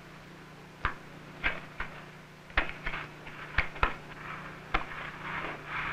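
Young jaguar and snow leopard cubs tussling: an irregular run of about eight sharp knocks and thumps over a steady low hum.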